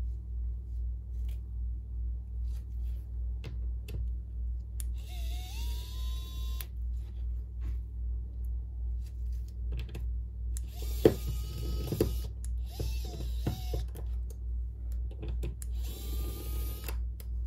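Electric precision screwdriver taking out a smartphone's small internal screws, its motor whining in four short runs of a second or two each, the first rising in pitch as it spins up. Sharp clicks of the tool and screws come in between, the loudest about eleven seconds in.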